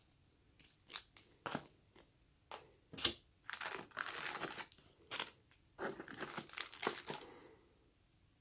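Clear plastic accessory wrapping crinkling and rustling as the earphones are handled and lifted out of a foam box insert, in irregular bursts with scattered clicks, thickening into two longer rustles in the middle and near the end.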